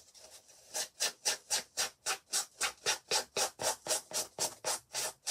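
Emery board rubbed back and forth along a paper edge: quick, even scraping strokes, about four a second, starting about a second in. The sanding wears away the excess paper along the edge so it comes off cleanly.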